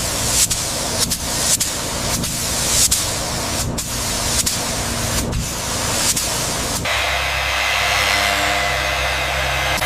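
Compressed air hissing out in repeated spurts. About seven seconds in it cuts to a steady, even motor sound.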